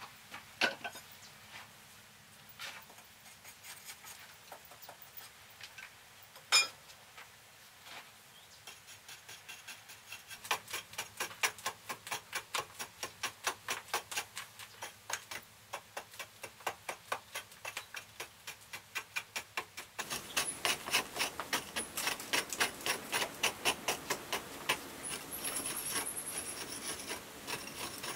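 Small hand hoe chipping at a carved earth wall: a few scattered taps at first, then steady, rapid chopping at about four strokes a second, louder in the last third.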